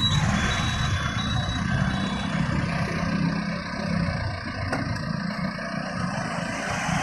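Motorcycle and road traffic engines running, a steady low engine rumble under general street noise.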